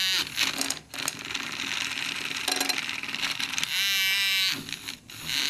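Battery-powered handheld milk frother running with its whisk churning into a slice of chocolate cake. The result is a harsh, rattling noise, with the small motor's whine coming through clearly about four seconds in.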